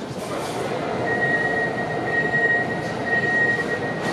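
Škoda Varsovia metro train standing at the platform, its equipment running with a steady high whine that breaks off and resumes several times over a steady rumble.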